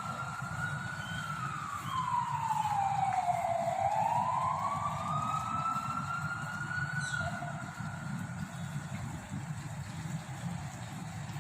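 Siren-like wail over a school loudspeaker system: one loud tone sinks slowly in pitch for a few seconds, climbs back up, holds high, then fades, over a steady low rumble.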